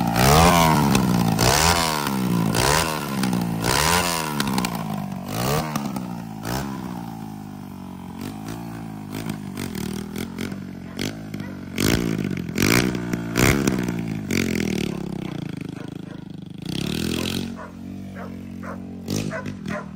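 Dirt bike's 150 cc engine revved in repeated throttle blips, its pitch rising and falling about once a second, then a few more spaced revs as the bike pulls away. The engine will not hold idle, which the rider puts down to dirt in the carburettor.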